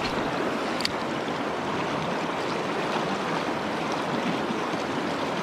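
Mountain trout stream rushing steadily around a wading angler, with one faint click about a second in.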